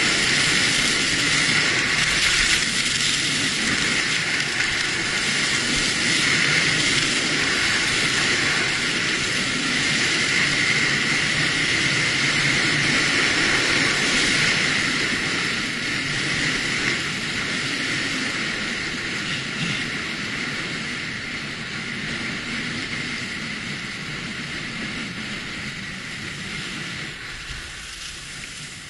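Steady rush of wind on the microphone with skis sliding over packed snow during a downhill ski run. It gets gradually quieter in the second half as the skier slows.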